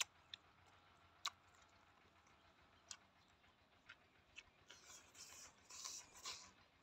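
Faint mouth sounds of a person eating roasted rat: a few soft isolated clicks of chewing, then several breathy puffs blown out through pursed lips about five to six seconds in.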